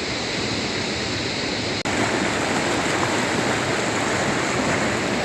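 Steady rush of water from a small waterfall on a mountain stream. It gets louder abruptly about two seconds in.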